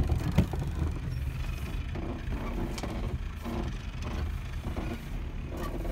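Cabin noise inside a GAZelle 4x4 van driving on a dirt track: a steady low engine and road rumble, with a couple of sharp knocks right at the start.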